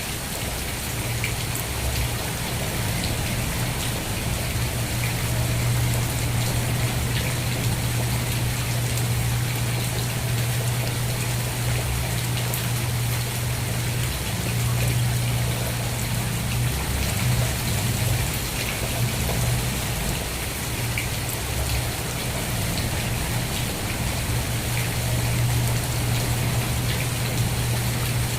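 Steady rain falling, an even dense hiss with scattered small drop ticks, over a steady low hum.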